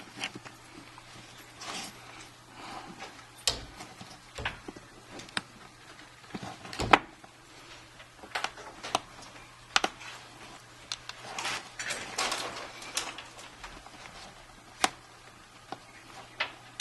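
Scattered sharp clicks and taps from handling an iPhone 5 while its replacement screen assembly is pressed down into the frame, with some rubbing in between; one click about seven seconds in is the loudest.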